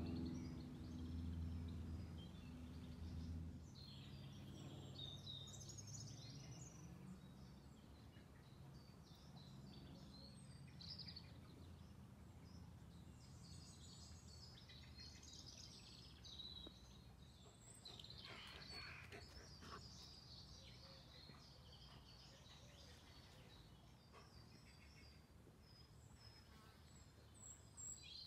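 Faint woodland birdsong: scattered high chirps and short song phrases from several birds over a quiet background. A low steady hum fades out in the first few seconds.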